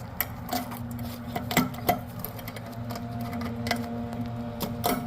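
Scattered small clicks and taps of hands handling a toilet flapper chain and flush handle, the loudest about a second and a half in, just after, and near the end, over a steady low hum.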